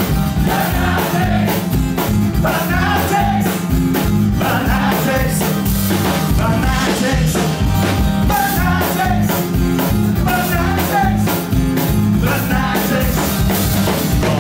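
Live rock band playing: acoustic guitar, electric bass and drum kit with a steady beat, a wavering lead melody carried over the top.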